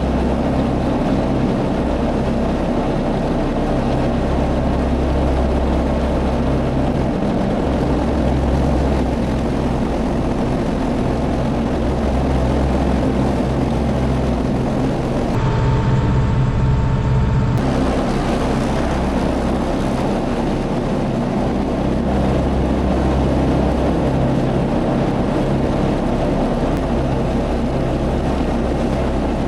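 Tractor engine running steadily under load, driving a rotary mower through grass. For about two seconds in the middle the sound changes, with a thin steady whine over a heavier hum.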